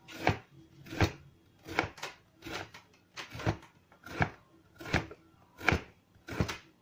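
Kitchen knife cutting raw pumpkin into cubes on a plastic cutting board: a steady series of sharp strokes, about one every three-quarters of a second, nine in all.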